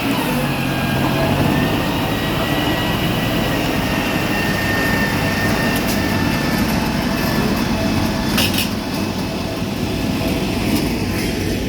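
A road roller's diesel engine running steadily, with a low drone and a faint high whine over it.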